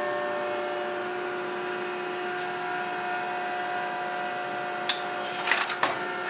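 Shoe sole press running with a steady mechanical whine while it presses a new sole onto a boot held on its last. A few sharp clicks come about five seconds in.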